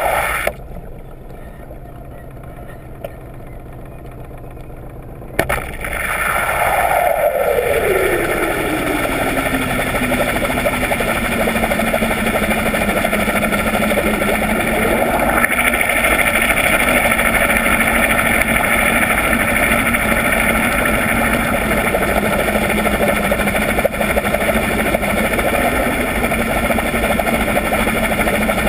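Underwater sound of a yacht's engine and its 16-inch folding propeller turning. It drops away sharply just after the start and comes back suddenly about five seconds in. Its tone then falls in pitch over several seconds and settles into a steady hum.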